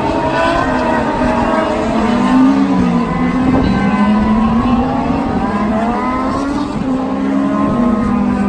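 Several IndyCar race cars' 2.2-litre twin-turbo V6 engines running together at fairly steady revs, their engine notes overlapping and drifting gently up and down in pitch.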